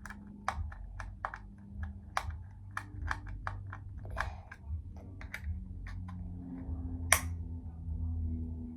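Irregular small clicks and taps from hands working a drone part loose and pulling it off, with one sharper click about seven seconds in.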